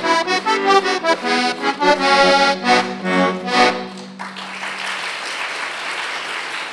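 Accordion playing the closing bars of a traditional folk tune over a steady bass drone, stopping about four seconds in; audience applause follows.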